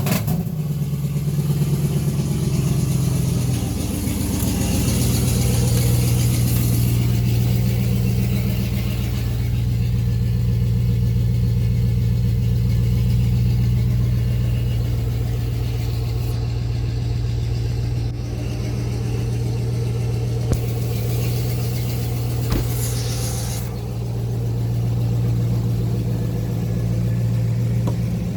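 2004 Chevrolet Avalanche's V8 engine running at idle, its note dropping slightly about four seconds in and then holding steady.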